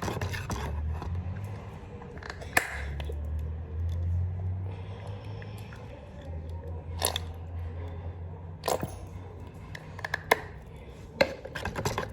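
A runny homemade slime mixed with hair gel, talc and cream being stirred and squished by hand, with a low handling rumble and a few sharp clicks and cracks.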